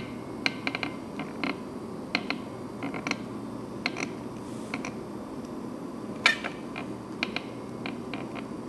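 Silicone caulking gun dispensing a bead: scattered sharp clicks and creaks, about one a second, over a steady low background hum.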